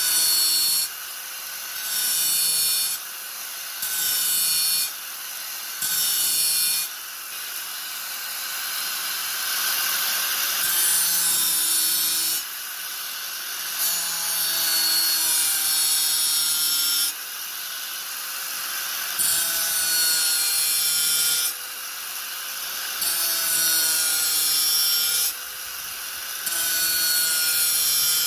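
Angle grinder running with a steady motor whine. Its disc bites into the work in about nine passes of one to a few seconds each, every pass louder than the free-running gaps between.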